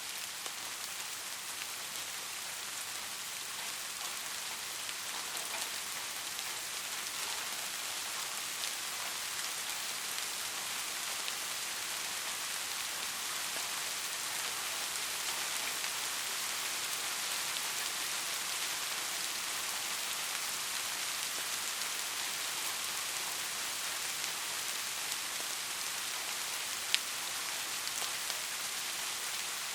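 Soft rain falling steadily: an even hiss with scattered faint drop ticks. One sharper single tick comes near the end.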